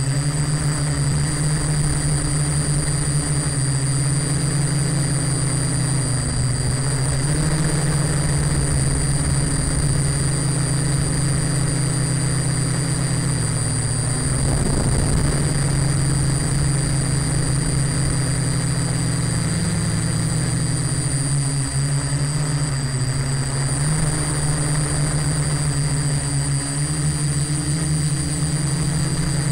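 Small quadcopter's electric motors and propellers buzzing steadily in flight, the pitch shifting a little as the throttle changes, with a thin steady high-pitched whine above it.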